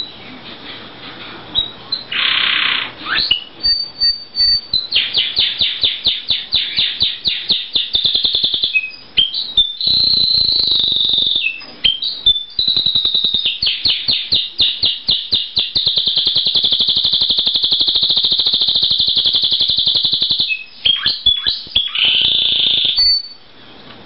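Male domestic canary singing a long, loud song. It runs through strings of rapid repeated chop notes, and about two-thirds of the way in comes a long, unbroken roll of several seconds.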